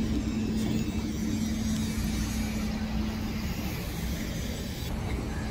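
Steady city road traffic: cars running on a nearby multi-lane road, a constant low rumble with a faint steady hum.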